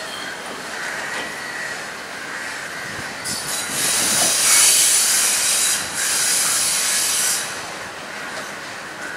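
Class S11 diesel multiple unit rolling slowly along a curve through a junction's points. A few wheel clacks come over the rail joints, then a loud high-pitched wheel squeal starts about three seconds in and lasts about four seconds, with a short break near the end.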